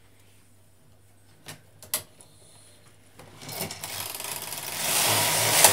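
Carriage of a Brother 950i standard-gauge knitting machine pushed across the needle bed to knit a row: a couple of light clicks, then a rattling rush that builds from about halfway in to its loudest near the end and stops with a sharp click as the carriage reaches the end of the bed.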